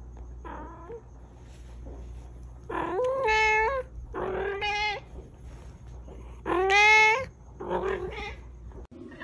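A domestic cat meowing repeatedly: one faint short meow, then four long meows, the loudest about seven seconds in.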